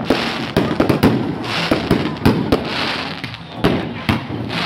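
Aerial fireworks display: rockets bursting overhead in an irregular string of sharp bangs, about two or three a second, over a steady hiss.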